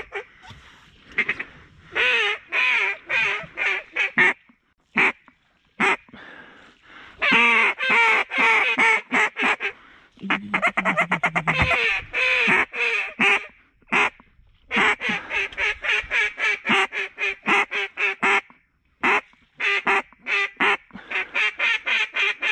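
Duck calls blown by hunters: repeated runs of loud quacks, with a fast run of short chattering notes about ten seconds in, calling to ducks overhead.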